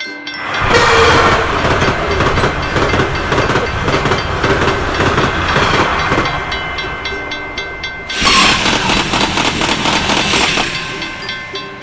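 Train passing over a railroad crossing: a loud rushing rumble with rapid clickety-clack of wheels on rail joints, swelling twice. A crossing bell dings rapidly and steadily underneath.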